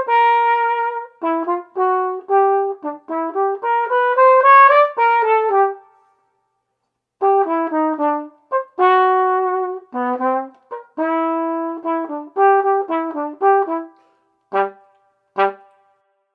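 Trumpet playing a lively solo melody of short and held notes, with no accompaniment heard. It rests for about a second six seconds in, then ends the phrase with two short, detached low notes.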